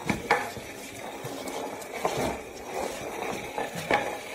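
A flowerpot with a plant in it being dragged across a tiled floor by a dog: a rough scraping along the tiles, broken by a few sharp knocks, the loudest near the start and about two and four seconds in.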